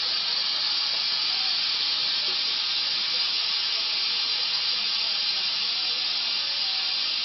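Shop compressed air hissing steadily through an AirLift venturi coolant refill tool as it pulls a vacuum on the 2.7L engine's cooling system, the vacuum building in the hoses.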